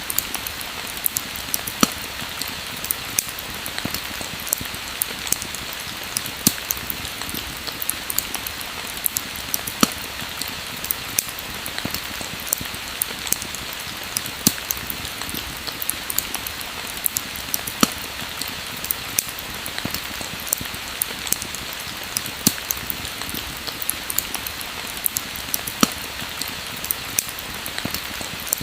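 Pouring rain as a steady hiss, with a fire crackling through it: frequent sharp pops and snaps, several a second.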